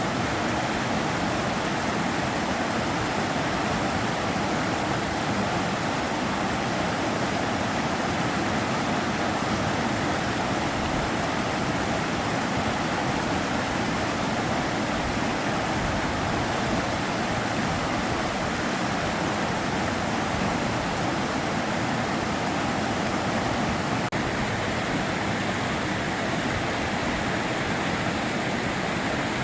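Steady rushing of the Sava River's flowing water, an even, unbroken sound.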